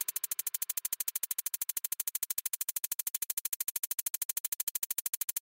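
Electronic background music: a fast, even synthesizer pulse, about ten beats a second.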